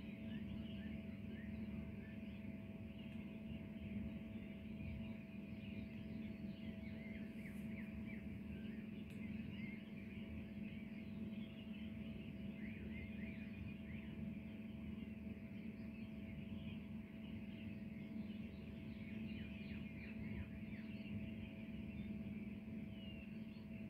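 Many small birds chirping together, a busy scatter of short high calls, over a steady low hum.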